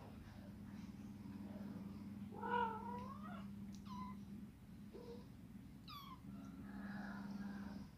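A kitten mewing: one loud, wavering meow about two and a half seconds in, then several short high mews and a softer, drawn-out cry near the end, over a steady low hum.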